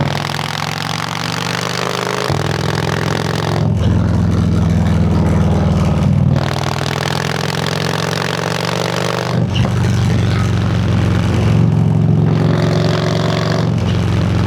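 2014 Harley-Davidson CVO Road King's Twin Cam V-twin under way, its engine and exhaust pulling hard: the pitch climbs under throttle and drops back at several gear changes.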